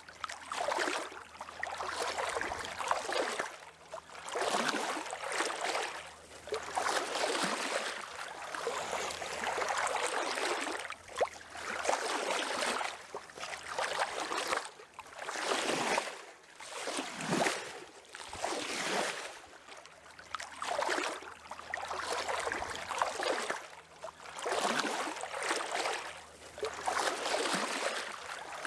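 Water sloshing and lapping in irregular swells every second or two, with a faint steady low hum beneath.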